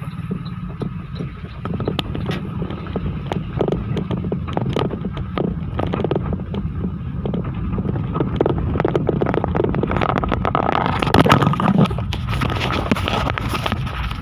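A vehicle running with a steady low rumble, with many short rattles and knocks over it that get louder around the middle and later part.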